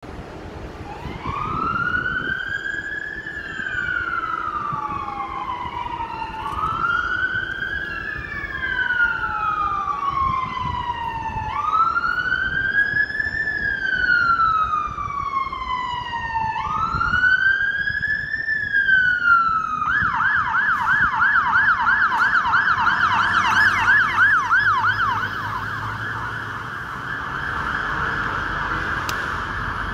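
Fire engine siren on a London Fire Brigade turntable ladder responding to a call: a slow wail rising and falling about every five seconds, switching about two-thirds of the way through to a fast yelp, over low city traffic.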